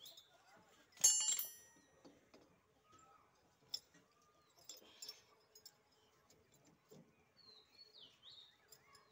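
Steel steering parts clinking: a sharp metallic clink with a short ring about a second in, then faint taps and scrapes as the rod end is worked into the power steering cylinder. Birds chirp briefly near the start and again near the end.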